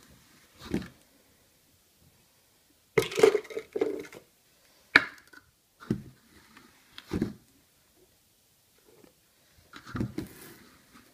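Plastic tubs, lids and a shaker cup being handled on a worktop: a run of separate knocks, clicks and clatters, loudest about three seconds in, with a sharp click about five seconds in.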